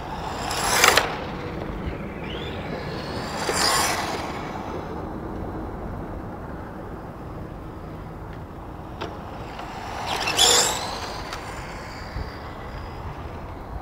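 Radio-controlled Tamiya TA-05 IFS car with a 540 electric motor passing close by three times: about a second in, near four seconds, and again about ten and a half seconds in. Each pass is a short swell of motor and gear whine that rises and falls in pitch.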